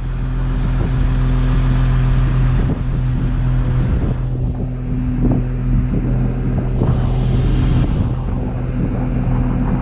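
John Deere 544G wheel loader's diesel engine running steadily as the loader creeps forward with rubber tracks in its bucket, with a few short clunks in the second half.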